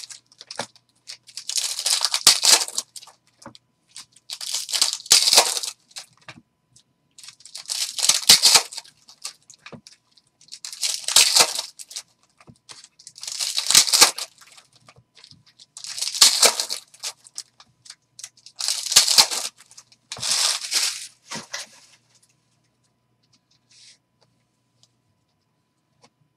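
Foil hockey-card pack wrappers (Upper Deck Trilogy) being torn open and crinkled by hand. The crackles come in a series of separate bursts, one every two to three seconds, and stop a few seconds before the end.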